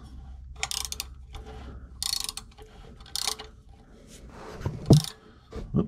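A 9/16 wrench turning a homemade welded oil-filter canister tool: four short metallic clicks and scrapes about a second apart, then a louder clunk near the end as the tool slips.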